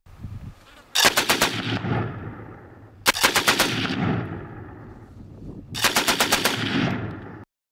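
Machine gun firing three short bursts of automatic fire, each of several rapid shots, about two seconds apart, with an echo rolling after each burst; the sound cuts off suddenly near the end.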